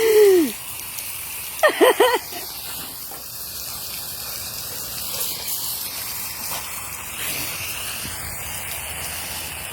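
Steady hiss of water spraying from a garden hose and splashing on the ground. It is broken by short pitched yelps: one falling call at the start and three quick ones about two seconds in.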